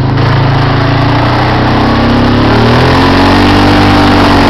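ATV engine running as the quad rides along a trail, its pitch rising gently partway through and then holding.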